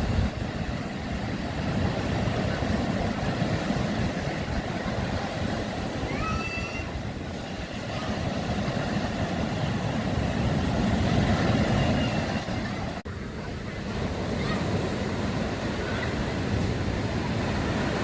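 Sea surf and wind on the microphone: a steady, uneven rushing noise.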